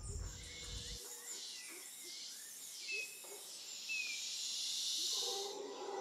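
Faint outdoor field ambience: a steady high insect hiss with a few short, falling bird chirps near the middle.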